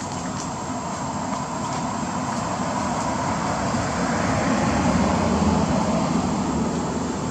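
A passing motor vehicle: a steady rumble that swells to its loudest about five seconds in, then eases off.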